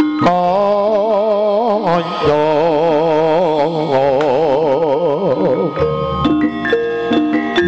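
Live Javanese jaranan gamelan music. Stepped metallophone notes near the start and end frame a long melody line in the middle that wavers with a fast, even vibrato, over drums.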